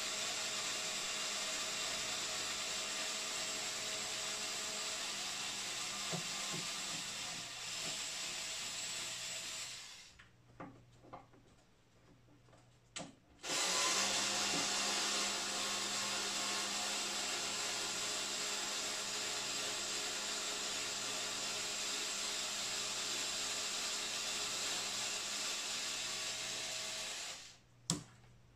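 Cordless electric screwdriver running steadily as it backs out the screws holding a subwoofer driver in its enclosure. It stops about ten seconds in for a few small clicks, then runs again for about fourteen seconds and stops with a click near the end.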